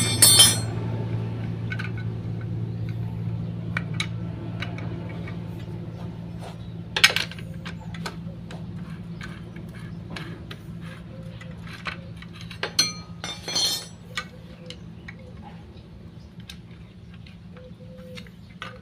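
Metal clinks and taps of a spanner and small metal engine parts being handled while the clutch oil cup is unbolted. There are a few louder clanks about a third of the way in and twice just after the middle. A steady low hum slowly fades underneath.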